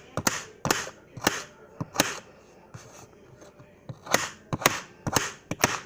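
Kitchen knife chopping raw potato into small cubes: a series of sharp knocks, about four in the first two seconds, a pause of about two seconds, then about five more.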